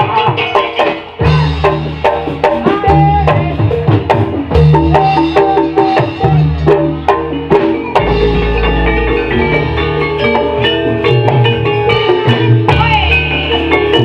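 Javanese gamelan music accompanying a kuda lumping dance: rapid strikes on metal keyed instruments and drums over a repeating low bass pattern, with a wavering melodic line above.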